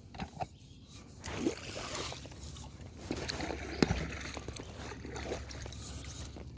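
Water sloshing around a raft being paddled on a slow river, with several sharp knocks.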